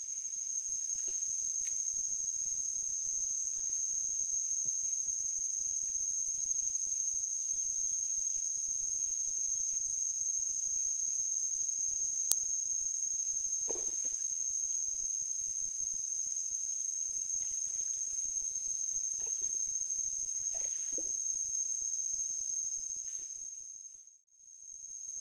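Steady high-pitched insect chorus buzzing without a break, with one sharp click near the middle.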